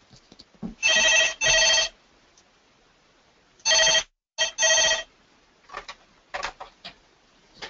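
A telephone ringing in the British double-ring pattern: two short rings close together, a pause, then two more. It stops about five seconds in, and a few faint clicks and knocks follow.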